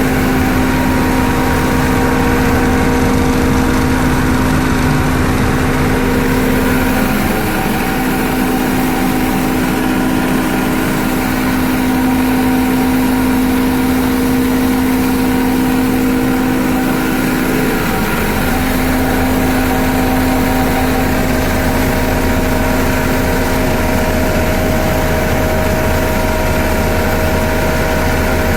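Coriander grinding mill and vibro sifter running together: a steady, loud machine hum with a constant motor tone. The deep rumble eases for about ten seconds in the middle, then comes back.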